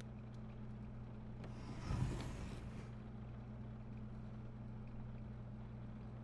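Steady low electrical-sounding hum, with a short rushing hiss and a dull thump about two seconds in.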